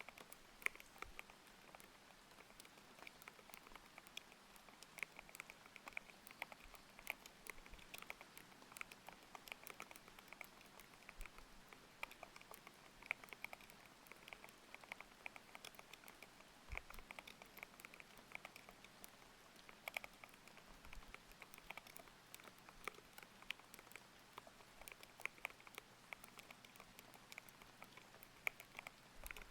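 Mechanical keyboard with Aqua King linear switches being typed on steadily: a quiet, irregular run of thocky key presses, several a second, over faint layered rain.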